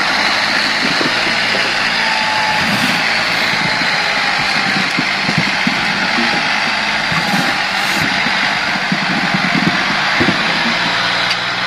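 John Deere utility tractor's diesel engine running steadily under load as it pulls a loaded trailer through deep mud.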